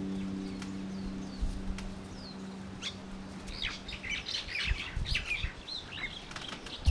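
The last low note of a carbon-fibre harp ringing and fading away over the first few seconds, while small birds chirp, more busily in the second half.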